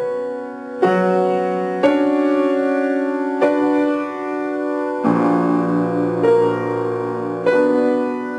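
Grand piano played with the left hand alone: a slow adagio of sustained chords, a new chord struck about every one to two seconds and left to ring into the next.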